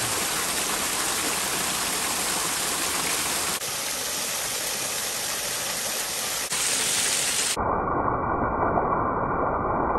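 Small waterfall splashing and rushing steadily over icy rock ledges. The sound shifts abruptly a couple of times, and near the end it turns muffled, with the high hiss gone.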